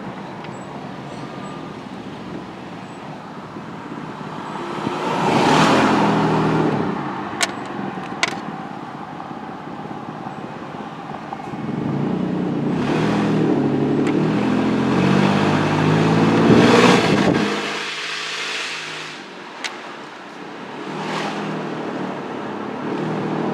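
Pickup truck's engine and exhaust while driving, revving up twice under acceleration, the second time longer, then dropping off sharply as the throttle closes. The exhaust escapes through an open oxygen-sensor hole, a test of whether a clogged catalytic converter's back pressure is choking the engine.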